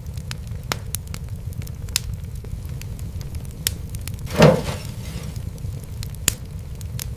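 Wood fire crackling in a fireplace: scattered sharp pops and snaps over a steady low rumble, with one louder, fuller burst about four and a half seconds in.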